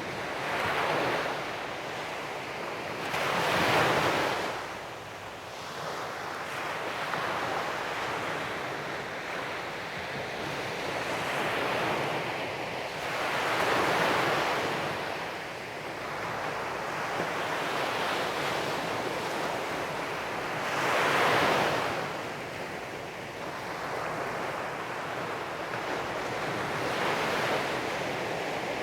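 Sea waves breaking on a sandy beach in a steady wash of surf, with a louder wave crashing every several seconds, strongest about four seconds in and again near twenty-one seconds. A light wind rumble runs underneath.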